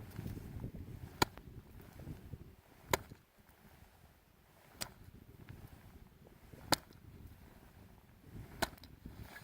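Five sharp taps, about two seconds apart: a hand striking a shovel blade laid on top of an isolated snow column. This is the loading stage of an extended column avalanche test, with the column not yet fractured.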